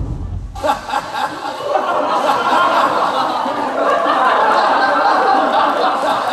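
Dance music cuts off about half a second in, then a large crowd cheers and shouts, building to a steady loud roar of voices.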